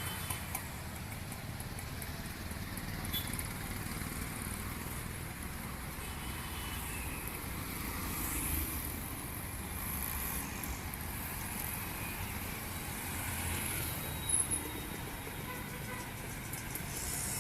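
City street traffic: a steady mix of passing vehicle engines and tyre noise, with a few brief louder moments.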